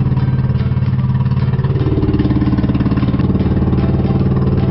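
Pumpboat's engine running steadily under way with a fast, even beat. Its pitch steps up slightly about two seconds in.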